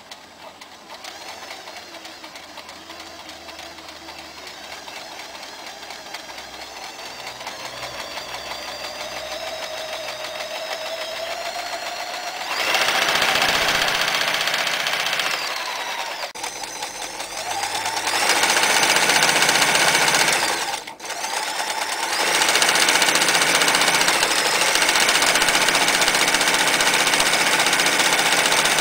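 Frister & Rossmann 503 electric sewing machine stitching through fabric. The motor runs slowly at first and its pitch climbs gradually, then it sews fast and louder in three long runs separated by brief dips.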